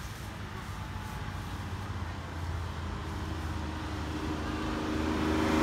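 Porsche sports car engine and exhaust rumbling at low revs, growing louder near the end as an engine note builds in.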